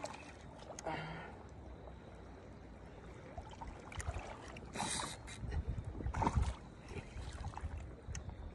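Water moving and washing along the rocky canal bank. A few short, louder noisy bursts come through around the middle.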